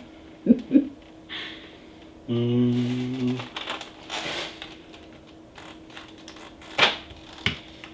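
Keycaps being pressed onto the switches of a mechanical keyboard: scattered plastic clicks and light rustling, with a sharper click near the end. About two seconds in, a brief steady low tone is the loudest sound.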